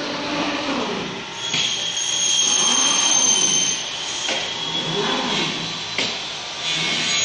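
CNC glass cutting table running, its motors giving a steady mechanical hum with a high whine over it as the cutting head moves over the glass sheet. A sharp click comes about four seconds in and another about six seconds in.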